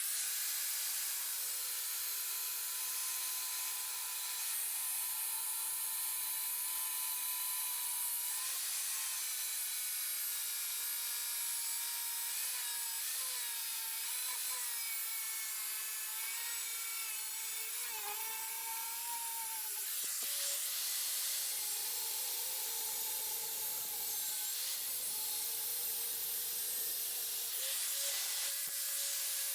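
DeWalt power tool with a thin cut-off wheel cutting through sheet steel, a continuous high whine whose pitch wavers and dips as the wheel is pushed into the cut.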